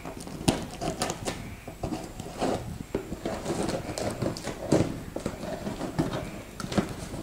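Scissors slitting the packing tape along a cardboard box's seam: a run of short, irregular scrapes and clicks as the blade drags and jabs through tape and cardboard.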